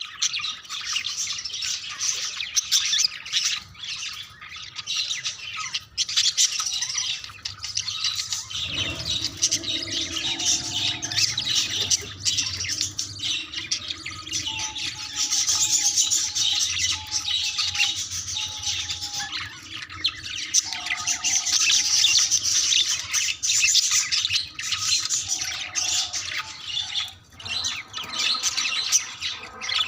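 Budgerigars chattering and warbling in courtship, a continuous dense stream of quick chirps and squawks.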